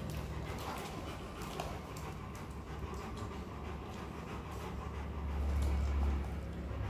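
Rottweiler panting steadily. A low rumble swells about five seconds in.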